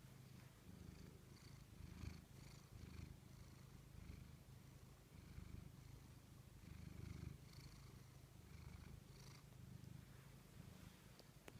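Cat purring faintly and steadily, the low rumble swelling and easing in a slow rhythm with each breath.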